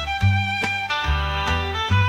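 Instrumental background music: held high melody notes over a bass line whose notes change about every half second, each with a sharp attack.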